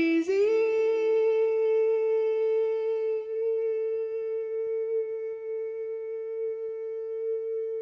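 The closing wordless vocal note of a soft ballad: a singer's voice slides up from a lower note into one long hummed note and holds it steady, slowly fading.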